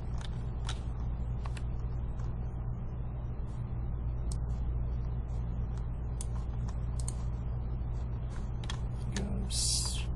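Sparse, irregular clicks of a computer keyboard being typed on during CAD work, over a steady low hum.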